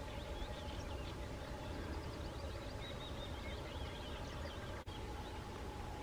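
Small birds chirping and twittering in the background, over a steady low rumble and a faint, constant hum.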